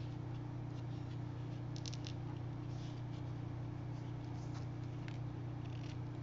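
Faint rustling and light ticks of hands handling a ribbon and card stock on a craft table, a few scattered handling noises over a steady low hum.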